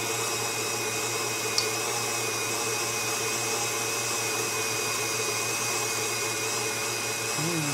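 Electric stand mixer running steadily, its beater churning butter and sugar in a stainless steel bowl: creaming the butter and sugar for a cake batter. A single light click about a second and a half in.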